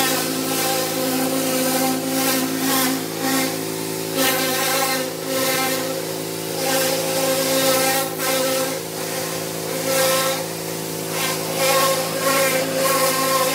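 Pressure washer running with a steady hum, its water jet hissing against vinyl siding and swelling and fading as the wand sweeps across the wall.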